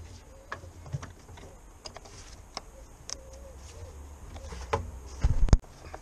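Rubber air-intake hose and its clamp on a Land Rover Freelander TD4 being handled and refitted by gloved hands: scattered light plastic clicks and taps, with a louder cluster of knocks just after five seconds.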